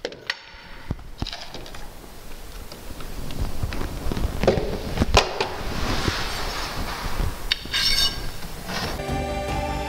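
Scattered knocks and clicks of iron balusters and their iron boots being handled against a wooden stair rail, with a brighter metallic clatter about eight seconds in.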